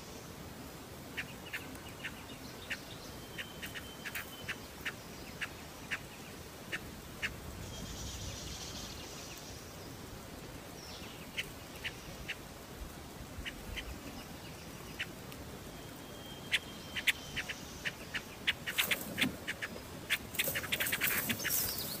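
Silver-eared mesia nestlings begging at the nest: short sharp chips repeating about twice a second, breaking into faster, louder chirping near the end.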